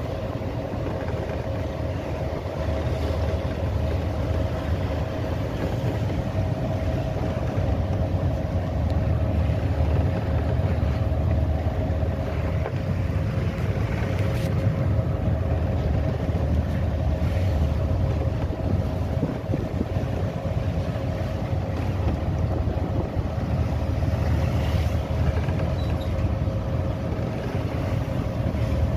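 Boat engine running steadily at sea: a constant low drone with a steady hum, over a wash of wind and water noise.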